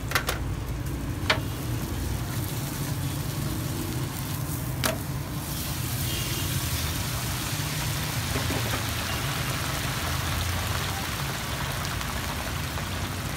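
Fish deep-frying in a large karahi of hot oil: a few sharp metal knocks in the first seconds, then the oil sizzling strongly from about five seconds in as it bubbles up around the fish. A steady low rumble runs underneath.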